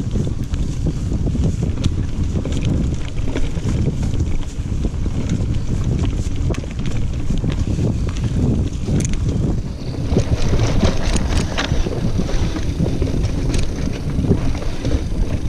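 Riding noise from a single-speed mountain bike on a dirt singletrack: wind buffeting the camera's microphone over tyres rolling on dirt, with frequent clatter and rattling as the bike goes over roots and rocks. The clatter gets busier about ten seconds in.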